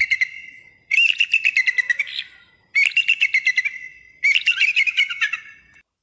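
Eagle calling: a high, fast series of piping notes in four runs, each fading out.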